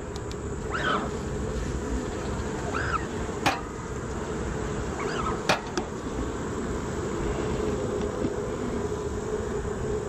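Honeybees buzzing around an open hive, a steady hum, with two sharp clicks about three and a half and five and a half seconds in.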